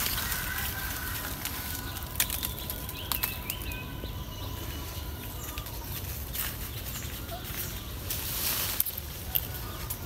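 Leaves and twigs rustling close by, with scattered sharp snaps and clicks and a longer surge of rustling near the end, over a steady low wind rumble on the microphone.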